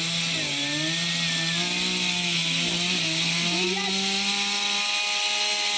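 Chainsaw engine running at a steady, high, even pitch.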